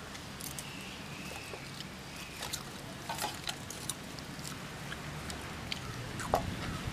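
Hands pulling apart a whole crisp deep-fried cauliflower on a steel plate: scattered small crackles and clicks over a steady low background hum.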